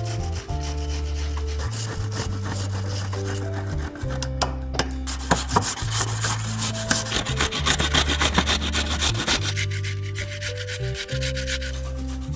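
Raw white radish (mooli) scraped by hand up and down a stainless-steel box grater in quick repeated rasping strokes, loudest in the middle of the stretch.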